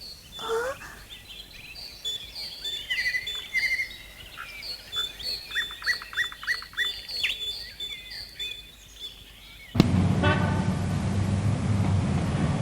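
Birds chirping and twittering in quick, repeated short notes, a cartoon's outdoor ambience. About ten seconds in it cuts off abruptly to a louder, fuller sound with a steady low hum.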